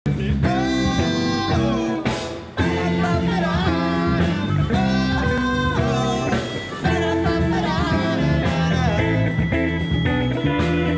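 Live band playing, with women singing over electric guitars, bass and drums. The band drops out briefly about two seconds in, then comes back in.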